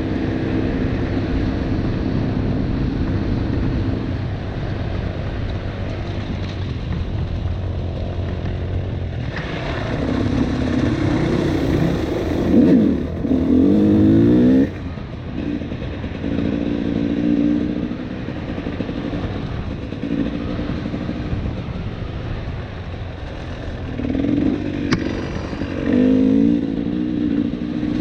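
KTM 300 two-stroke dirt bike engine running on a trail ride, holding a steady note with two stretches of quick revving up and down, the louder one about ten seconds in and a shorter one near the end.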